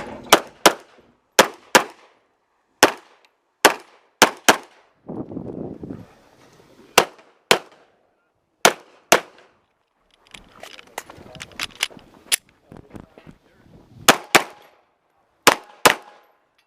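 9mm Glock 34 pistol fired in a USPSA stage: about sixteen sharp shots, mostly quick double taps, in several strings with short pauses between them.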